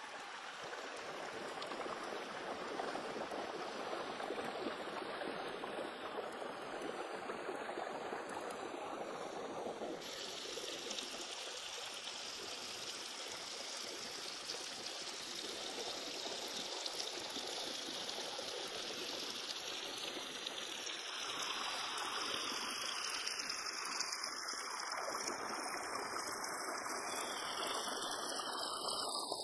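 A shallow rocky stream running steadily, with an abrupt change in its sound about ten seconds in.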